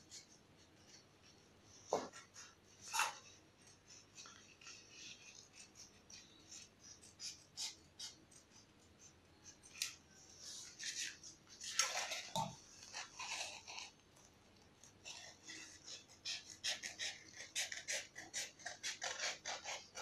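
Scissors snipping through a sheet of craft foam: a run of short, soft cuts, quicker and denser in the second half, with the foam sheet rustling and knocking as it is turned in the hand.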